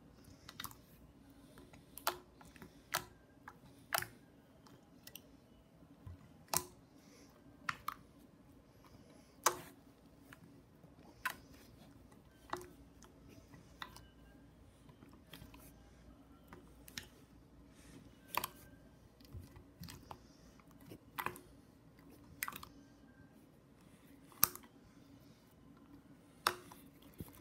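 Green slime being kneaded and pressed by hand, giving irregular sharp clicks and pops about every second or two as air pockets in it burst. A faint steady hum runs underneath.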